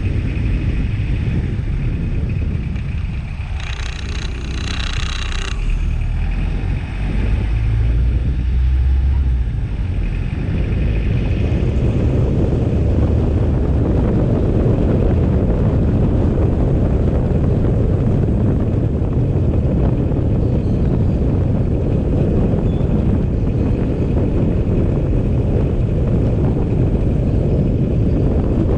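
A vehicle driving through town streets: a steady low rumble of engine and road noise with wind buffeting the microphone, thickening after about six seconds. A brief higher-pitched sound lasts about two seconds, starting about three and a half seconds in.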